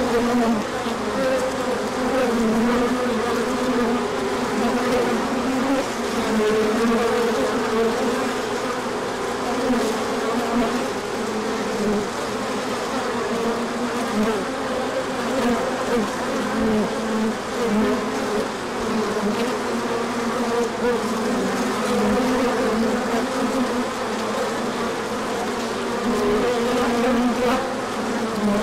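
Honey bees buzzing in large numbers close by: a loud, steady hum whose pitch wavers constantly.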